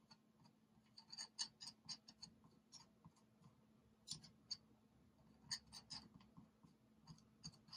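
Near silence broken by faint, irregular light ticks and scrapes of a thin tool dabbing and spreading grease on an RC car's gearbox.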